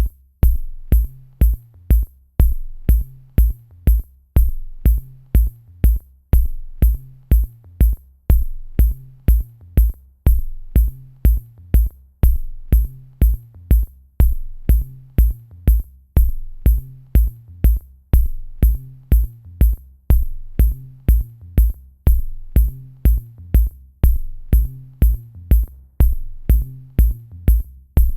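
Electronic drum-machine beat: deep bass thumps and sharp clicks in a pattern that loops about every two seconds.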